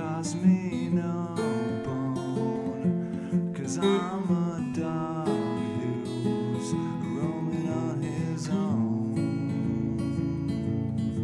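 Acoustic guitar strummed, with a wavering higher melody line over it.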